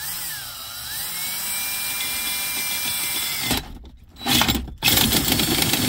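A DeWalt 20V cordless drill spins a 3-inch hole saw against a plastic cup-holder lid. The motor whine rises, then holds steady for about three and a half seconds before stopping. It then starts again in short pulses, the saw teeth scraping into the plastic, as gently as possible.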